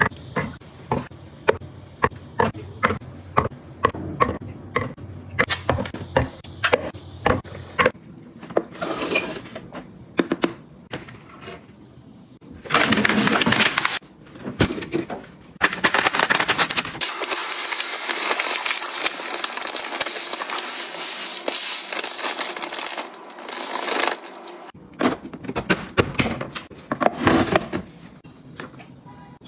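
Light plastic clicks and knocks of small bottles being set down one after another on a wooden cabinet shelf, about two or three taps a second. Later comes a steady hissing rush lasting several seconds, and a few more knocks follow near the end.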